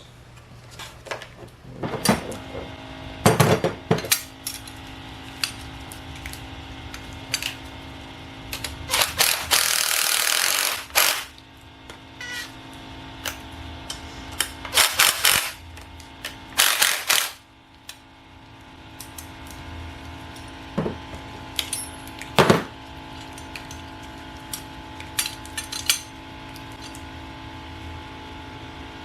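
Hand tools and metal shifter parts clinking and knocking as new bushings are fitted into a car's shift linkage, with scattered sharp clicks, a noisy stretch of about two seconds near the middle and a few louder clatters after it, over a faint steady hum.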